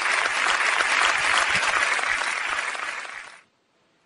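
Audience applauding, cut off abruptly about three and a half seconds in.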